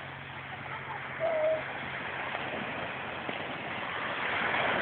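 Small sea waves breaking and washing up a beach, swelling near the end. A brief pitched call cuts through about a second in.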